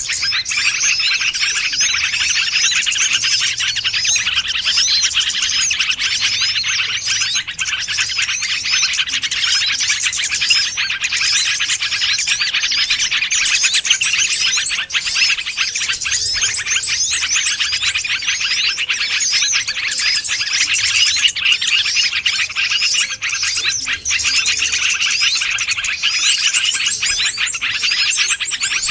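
Dense, continuous chorus of many small birds chirping and twittering at once, the overlapping calls of a bird-lure recording meant to draw wild songbirds close.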